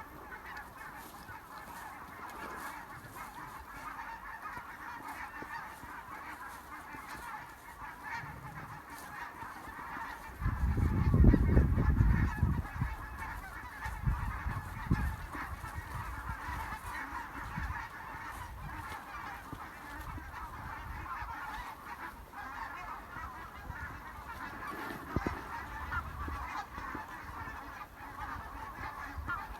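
A flock of geese honking continuously, many calls overlapping. A loud low rumble breaks in about ten seconds in and lasts a couple of seconds.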